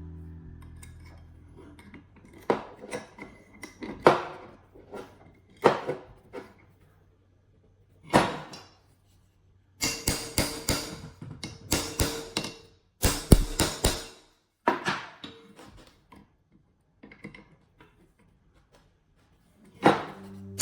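Irregular knocks, taps and metallic clinks of tools and metal parts being handled, with a quick run of clattering strikes in the middle.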